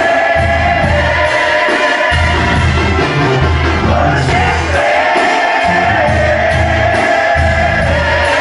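Banda sinaloense brass band playing live: trumpets and trombones hold a melody line over a sousaphone pulsing out short bass notes and drums, heard loud from within the audience.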